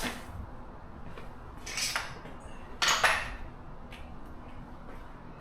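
Metal parts being handled, with two short clattering clinks about two and three seconds in.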